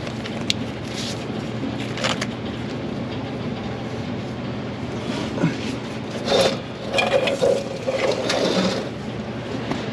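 Metal clicks, knocks and scrapes of hand tools and a heavy starter motor being handled, with a cluster of louder ringing metallic clanks in the second half. A steady background noise runs underneath.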